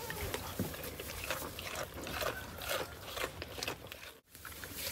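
A goat chewing raw carrot, a run of irregular crisp crunches.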